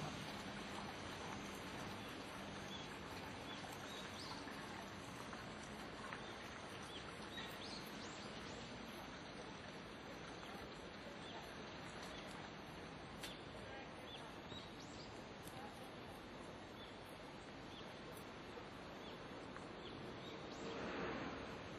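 Quiet, steady outdoor background hiss with faint, scattered short bird chirps. The level swells slightly near the end.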